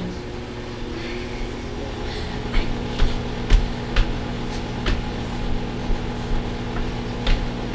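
Microwave oven running with a steady hum, with irregular light thumps and clicks over it.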